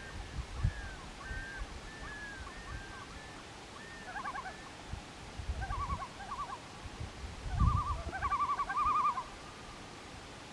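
Common loons calling: a run of repeated arched notes, then wavering tremolo calls that are loudest near the end.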